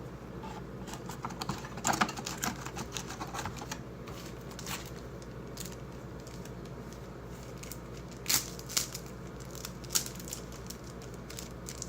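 Irregular light clicks and crinkles of cardboard and plastic packaging being handled, with a couple of louder clicks near the end.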